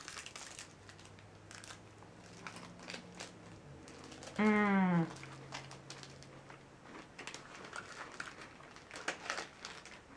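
Snack wrapper crinkling and rustling as it is handled, in many small crackles. About four and a half seconds in, a short hummed voice sound falling in pitch, the loudest moment.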